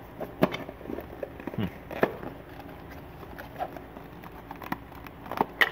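Handling noises: a hand rummaging at a bag and picking up a small cardboard box, giving scattered clicks and knocks, with the sharpest cluster near the end.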